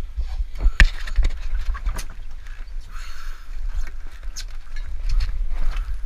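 Scattered knocks and clanks of scuba gear and the handheld camera being moved about on a dive boat deck, over an uneven low rumble.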